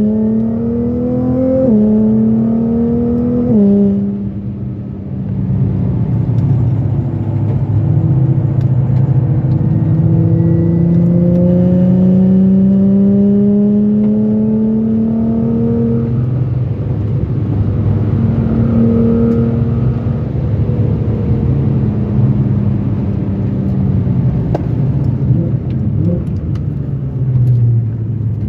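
Ford Fiesta engine heard from inside the cabin, accelerating hard at full throttle. There are two quick upshifts in the first four seconds, then a long pull rising steadily in pitch. About sixteen seconds in the throttle lifts and the engine note drops and falls away as the car slows, with short changes in pitch near the end.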